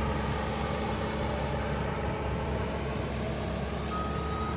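Skid-steer loader's engine running steadily under the noise of its hydraulic grinding attachment, with a steady high whine starting near the end.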